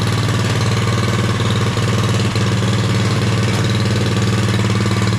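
Mini bike's small single-cylinder engine idling at a steady speed, not revving. The throttle has no effect because the governor arm has lost its linkage spring.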